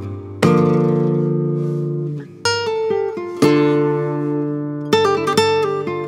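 Background music of guitar chords strummed and left to ring out, a new chord every second or two, with a quick run of short strums near the end.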